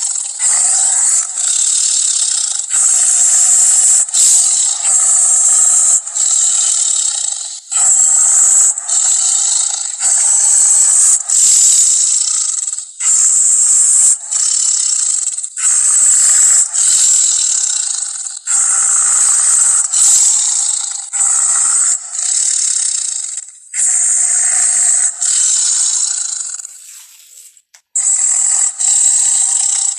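Fan-made Indoraptor creature vocal sound effects: a string of harsh, hissing screeches and rasps, each lasting about half a second to two seconds, following one another with short breaks. The run fades to near silence about 27 seconds in, then resumes.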